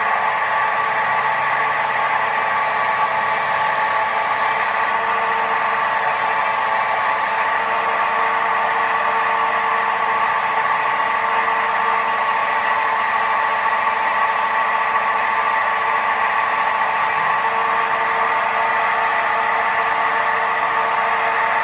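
Record wood lathe running steadily at speed, a continuous even hum with several steady tones, while the outside of a bowl blank is turned.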